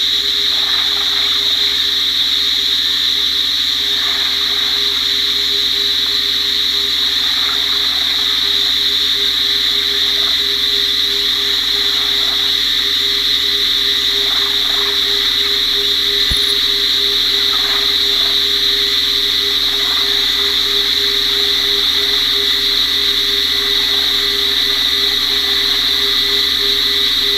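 A dense chorus of frogs at a tropical explosive-breeding gathering: a steady high-pitched trill from massed callers, a fast pulsing low note underneath, and lower calls that repeat every second or two. There is a single sharp click about halfway through.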